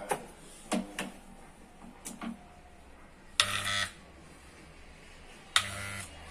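Several light clicks, then two short mechanical buzzing bursts about two seconds apart.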